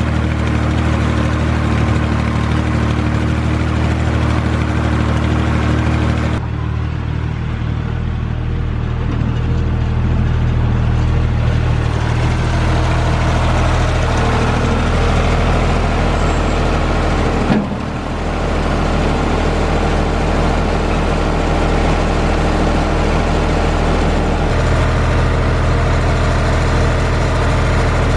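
An engine running steadily at idle, with a low, even hum. The sound changes abruptly about six seconds in and again about seventeen seconds in.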